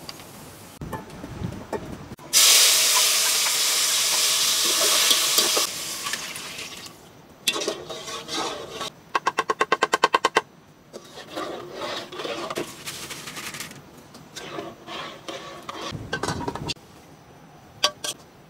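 Kitchen utensil sounds: a loud hiss lasting about three seconds, then scraping, then a quick run of about a dozen taps of a metal spoon on a wooden plate over a pot, knocking food off, followed by more scraping.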